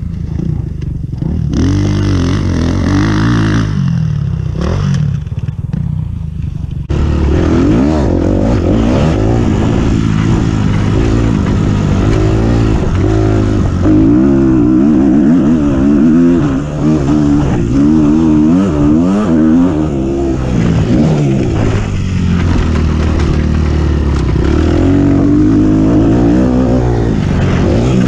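Four-stroke motocross bike engine being ridden hard, revving up and dropping back again and again as the throttle opens and closes through the gears. It gets louder and fuller about seven seconds in.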